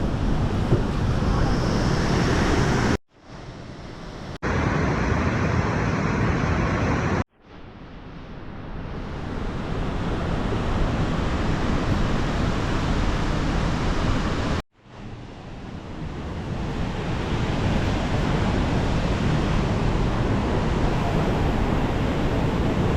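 Steady roar of a waterfall, cut off sharply several times, each time starting again and swelling back up over a few seconds.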